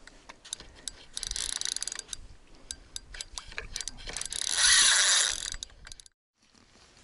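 Nautilus Distanza spinning reel working against a hooked fish: rapid mechanical clicking with buzzing runs as line goes through the reel. The loudest run comes about four and a half to five and a half seconds in, and the sound cuts off about six seconds in.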